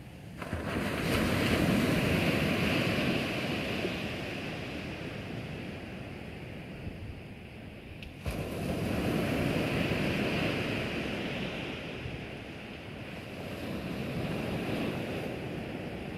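Ocean surf on a sandy beach: small waves breaking and washing up the sand in surges. Two louder surges start abruptly, about half a second in and about eight seconds in, each fading over several seconds, with a softer one near the end.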